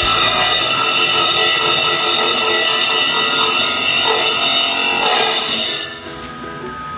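Background music, loud and dense, dropping to a quieter, rhythmic passage about six seconds in.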